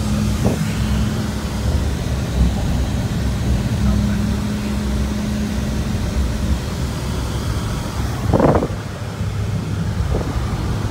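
Car on the move: steady low engine and road rumble with a constant hum, and one short louder sound about eight and a half seconds in.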